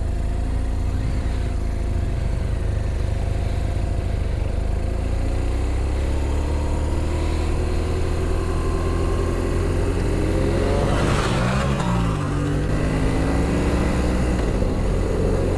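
BMW R1200RT boxer-twin engine pulling away and accelerating, its pitch climbing, dropping sharply at an upshift about two-thirds of the way through with a short rush of noise, then climbing again.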